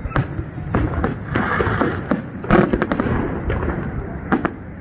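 Aerial firework shells bursting in a display, many sharp bangs coming at irregular intervals, the loudest about two and a half seconds in.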